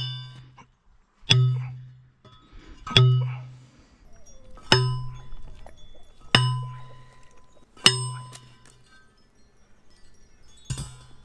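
Manual post hammer (steel post driver) striking a fence post again and again, each blow a ringing metal clang with a low hum that fades over about a second. Six strikes come at a steady pace about every one and a half seconds, then one more after a pause near the end.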